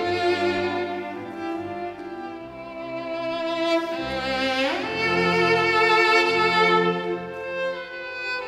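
Solo cello playing a melody over a string orchestra accompaniment. About halfway through it makes a quick upward slide in pitch, then long held notes follow.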